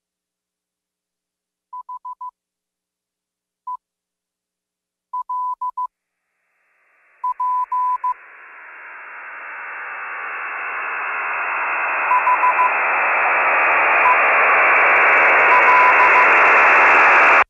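Electronic intro: groups of short, high, steady beeps like a radio signal. From about seven seconds in, a hiss of radio-like static swells steadily louder, with fainter beeps still sounding under it.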